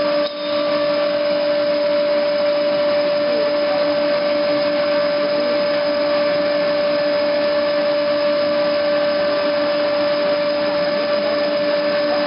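PVC pipe coiler running as its reel winds plastic pipe, amid pipe-line machinery: a steady mechanical hum with a constant whine.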